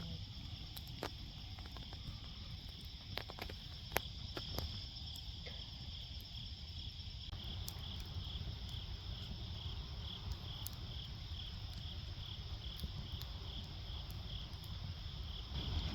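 Insects chirping steadily in an even pulsing rhythm, high-pitched, over a low background rumble, with a few sharp clicks scattered through.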